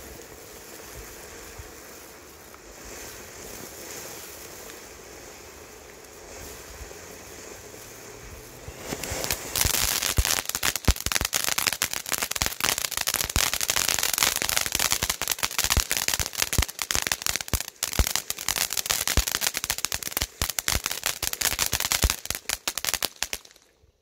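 Standard Fireworks Emoji Fountain, a ground firework fountain, burning. It gives a steady hissing spray for about the first nine seconds, then breaks into much louder, dense crackling that cuts off abruptly near the end as it burns out.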